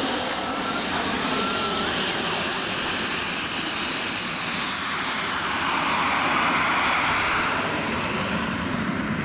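Aero L-29 Delfin jet flying, its turbojet giving a steady high whine over a rushing noise that grows a little louder about six to seven seconds in.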